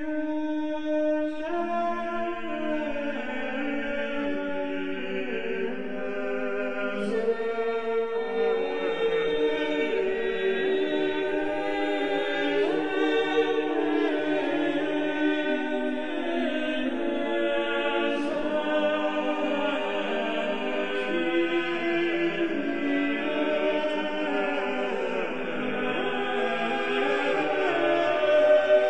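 Choir singing slow, held chords, several voice parts sustaining notes together.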